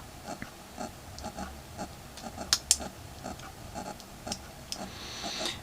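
Faint, irregular small clicks and taps of fingers working on a phone's internals, the LG G3's board connectors being unclipped, with two sharper clicks about two and a half seconds in.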